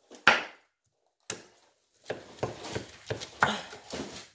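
Chef's knife cutting a whole pineapple on a wooden cutting board: two separate knocks in the first second and a half, then a quick run of cuts and knocks on the board from about two seconds in.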